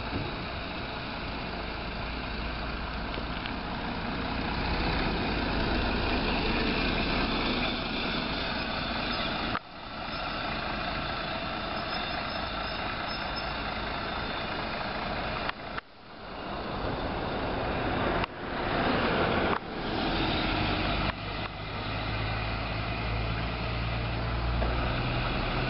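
Mercedes-Benz O345 Conecto city bus engine running at the stop and then pulling away, the sound growing louder as it goes. The sound drops out sharply twice in the middle, and in the second half it swells and falls back in several steps.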